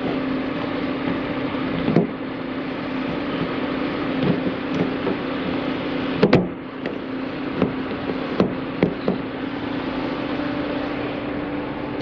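Light clicks and knocks of wiring and parts being handled inside a car door, the loudest pair about six seconds in, over a steady mechanical hum.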